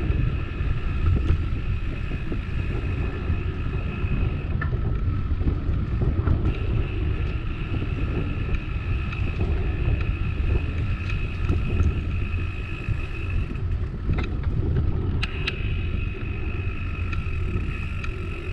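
Wind on the microphone and tyre rumble from a bicycle rolling along a concrete path, with a steady high buzz that drops out twice and a few sharp clicks about fourteen to fifteen seconds in.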